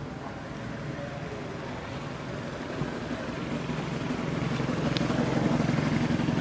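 A motor engine running steadily, growing louder over the second half.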